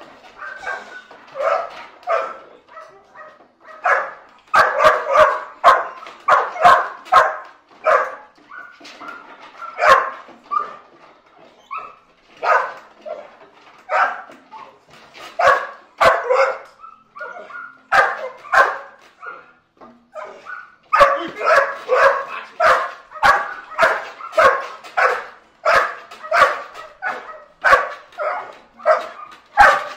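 A dog barking in rapid, repeated volleys, with a short lull about twenty seconds in. It is a protection dog being worked up against a decoy in a bite suit.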